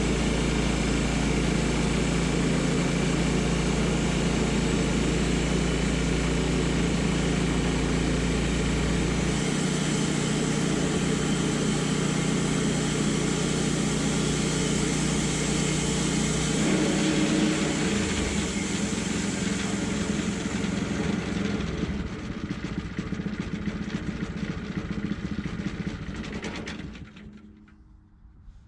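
Woodmizer LT10 bandsaw mill's engine running steadily under sawing, its low tone shifting about a third of the way in. It fades and stops near the end.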